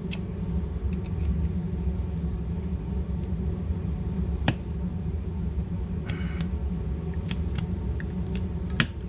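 A few small metal clicks and a brief scrape as the grip screw of a Beretta 71 pistol is worked loose, with the sharpest click near the end. All of it sits over a steady low hum.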